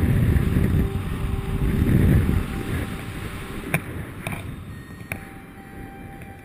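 Wind rushing and buffeting over a paraglider's harness-mounted action-camera microphone in flight. It is loud for the first couple of seconds, then eases to a softer rush, with a few sharp clicks in the middle.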